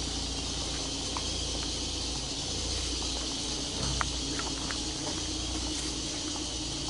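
A few sharp metallic clicks and clinks of a hand wrench on car suspension parts, the clearest about four seconds in, over a steady background hiss and low hum.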